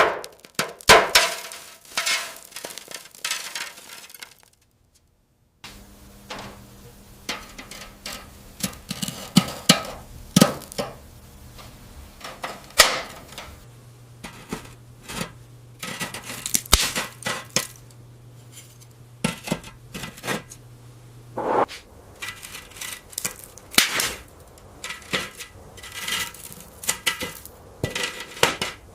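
Small metal parts of an old toy car clinking and tapping against each other and a hard surface in irregular clicks, with a short silent break about five seconds in. A faint low hum sits under the clinks through the middle of the stretch.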